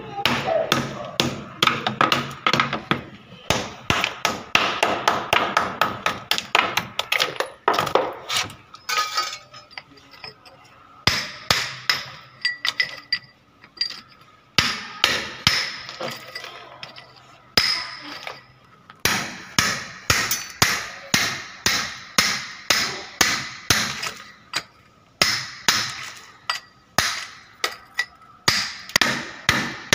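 Hammer striking a hard surface over and over, about three blows a second, with a few short pauses between runs of blows.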